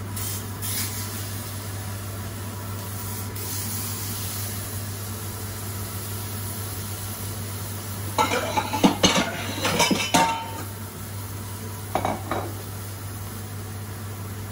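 Beef fillet sizzling as it sears in a hot frying pan over the steady hum of a kitchen extractor fan. A burst of clattering pan and utensil knocks comes about eight seconds in, and a shorter one about twelve seconds in.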